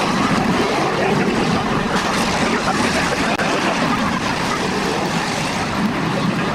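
Several demolition derby cars' engines running together, a steady loud din.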